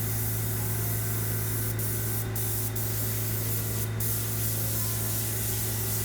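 Steady, unbroken hiss of a compressed-air spray gun over a steady low hum.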